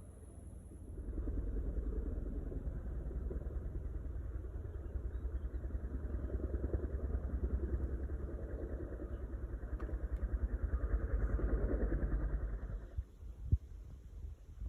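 An engine running with a steady, rapid pulse, cutting off abruptly near the end, followed by a couple of knocks.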